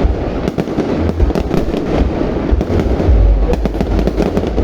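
Fireworks display with shells bursting in quick, overlapping succession: a dense crackle of sharp bangs over a continuous deep rumble of booms.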